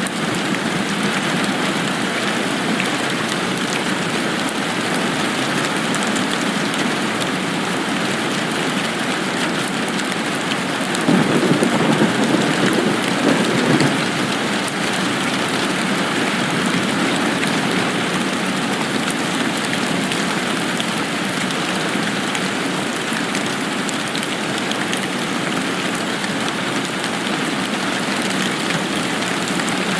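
Steady rain falling, a dense even hiss of drops. About a third of the way in, a low rumble swells for around three seconds.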